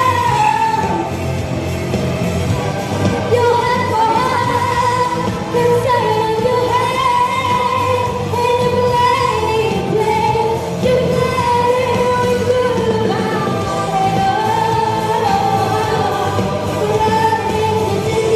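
A young female lyric mezzo-soprano singing live into a handheld microphone over backing music, holding long notes that slide and bend in pitch, amplified in a large hall.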